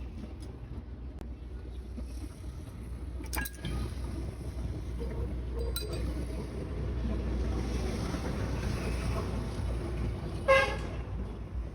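Low, steady rumble of traffic with two sharp metallic clinks, then a short vehicle horn toot near the end.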